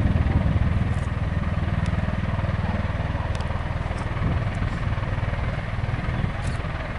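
Bell Boeing V-22 Osprey tiltrotor taxiing with its nacelles upright: the twin turboshaft engines and big proprotors give a steady, rapid low throbbing that slowly grows quieter.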